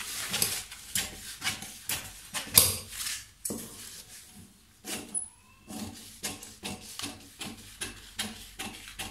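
Long tailor's scissors cutting through kraft pattern paper, snip after snip at about two a second, with a short pause near the middle.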